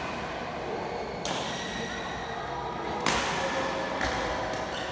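Badminton rackets striking a shuttlecock during a rally: two sharp cracks about two seconds apart, each with a short echo.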